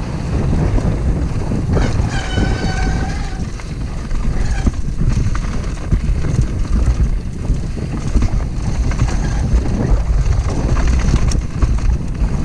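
Wind buffeting a helmet or chest-mounted action-camera microphone on a fast downhill mountain-bike descent, with the bike rattling and knocking over the rough trail. About two seconds in there is a brief high whine.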